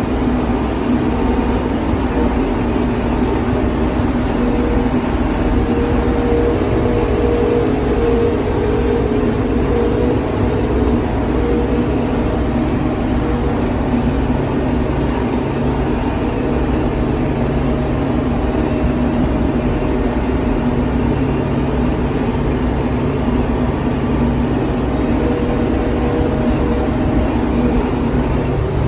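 Tym tractor's diesel engine running steadily at working speed, driving a Vermeer 504L round baler, with the baler's machinery running underneath.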